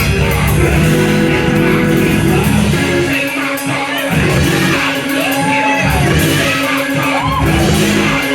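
Church praise music with a held organ chord and bass, over which voices sing and shout out.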